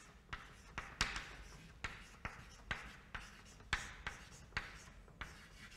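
Chalk writing on a chalkboard: a run of sharp taps, about two a second, each followed by a short scratch as the chalk strokes across the board.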